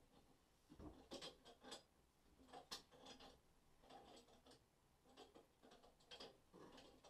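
Faint, irregular metallic clicks and short scrapes of a wrench working a fitting on a wall-mounted water valve.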